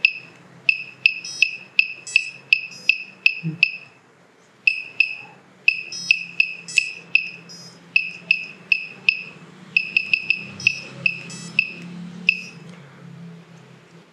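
KK2.1.5 flight controller's buzzer beeping once for each button press while values are stepped in its LCD menu: short high-pitched beeps, about three a second, in runs with brief pauses between.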